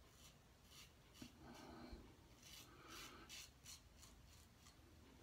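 Faint scrape of a Ming Shi Q Shave adjustable safety razor drawn over lathered stubble in short, repeated strokes, about two or three a second. This is a final touch-up pass, with hardly any stubble left.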